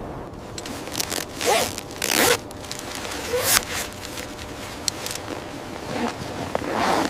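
A series of short, irregularly spaced scraping crunches over a steady background hiss. The loudest come about a second and a half and two seconds in, and again near the end.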